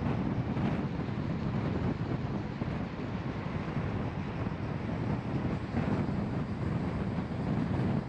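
Steady road noise of a moving car: a low, even rumble of tyres on the road with wind noise on the microphone.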